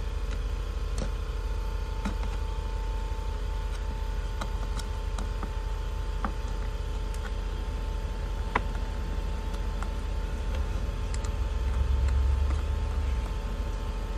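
Steady low background hum with faint steady tones, and a few light clicks and taps from clear acrylic parts with metal fittings being handled on a table. The hum swells briefly a little before the end.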